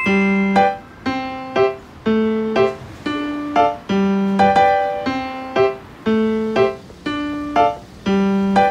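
Background music: a keyboard, piano-like, playing a bouncy repeating pattern of short notes, about two a second.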